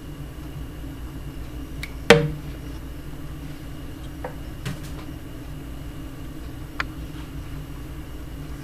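Steady low hum with one sharp knock about two seconds in that rings briefly, like a hard object bumping a glass or plastic dish, and a few faint clicks later on.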